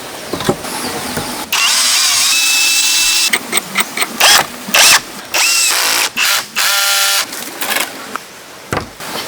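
Power tool running in several short stretches of about a second each, starting and stopping abruptly, with sharp knocks between them.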